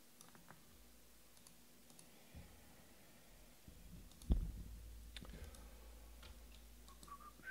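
Faint scattered light clicks, with a single thump about four seconds in followed by a low rumble, then a few more clicks near the end.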